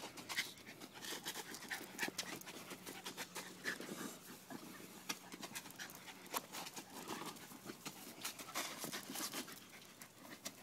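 A dog panting while it plays, with irregular short clicks and knocks scattered throughout.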